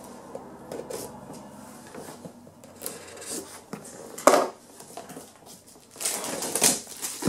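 Plastic shrink-wrap being cut with scissors and pulled off a cardboard box: faint rubbing and scraping, a sharp click a little over four seconds in, then louder crinkling of the plastic film near the end.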